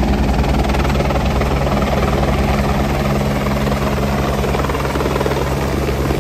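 Light single-engine helicopter coming in to land on a helipad, its rotor beating rapidly and steadily over a low engine drone.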